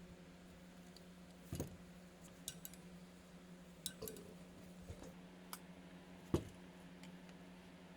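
Scattered light clicks and clinks of small carburetor parts and tools being handled during a carburetor rebuild, over a steady low hum; the loudest knock comes about six seconds in.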